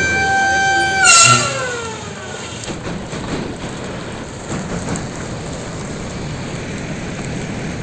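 Air raid warning siren holding a steady pitched tone, then, about a second in, a short loud burst of noise as the siren's pitch slides down and dies away over a second or so, marking the end of the alert. A steady background noise remains.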